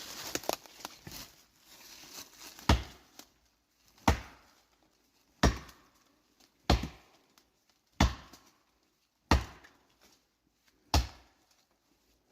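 Council double-bit axe chopping into a white oak trunk to fell it: seven sharp blows at a steady pace, about one every second and a half, after a couple of seconds of light rustling.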